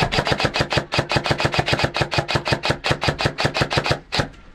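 Airsoft electric rifle firing full-auto: a long, steady burst of rapid, evenly spaced shots, about eight a second, with a steady hum under them. The burst stops a little after four seconds in.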